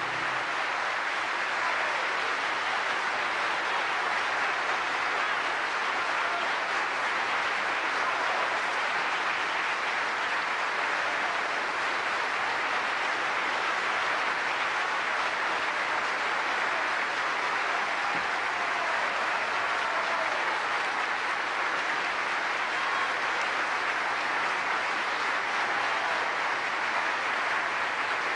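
A large audience applauding steadily, a dense, even clapping that holds for the whole stretch, as the last piano chord dies away at the very start.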